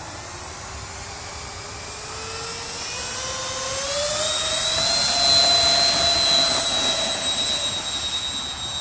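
Four 70 mm electric ducted fans on a large foamboard RC 747 model spooling up on its takeoff roll: a rising whine that grows louder, peaks about five seconds in, then eases slightly.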